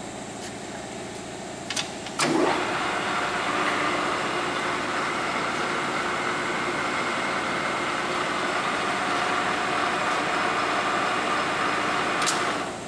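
1979 Takisawa TSL-800D engine lathe switched on with a click about two seconds in, its motor rising quickly in pitch as the spindle spins up, then running steadily with a gear whine, set for threading. It is switched off with a click near the end.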